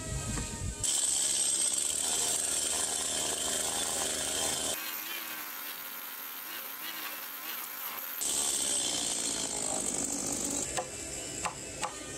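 Stihl two-stroke gas chainsaw cutting down into a squared timber beam, making the kerf cuts for a notch. The sound thins out and drops in level for a few seconds in the middle, then the saw is loud again, followed by a few sharp knocks near the end.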